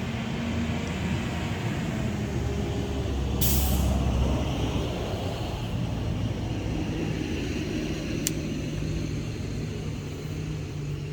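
A heavy vehicle's engine running steadily, with a short sharp hiss of air like an air brake release about three and a half seconds in and a single sharp click a little after eight seconds.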